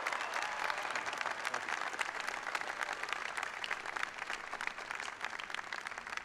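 A large crowd applauding, a dense patter of many hands clapping that slowly dies down toward the end.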